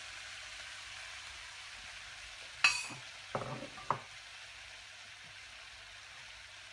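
Chicken, broccoli and spaghetti sizzling steadily in hot olive oil in a non-stick frying pan. About two and a half seconds in comes a sharp ringing clink, the loudest sound, followed by a couple of short knocks a second later.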